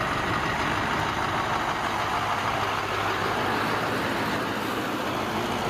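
Scania tractor unit's diesel engine running as the truck drives along, a steady low hum under an even rushing noise.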